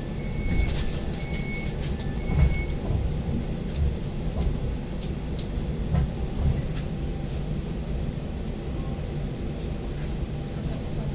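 Electric multiple unit (ŁKA 36WEd) heard from inside: a steady low rumble with occasional knocks. An alternating two-tone beep sounds during the first few seconds and then stops.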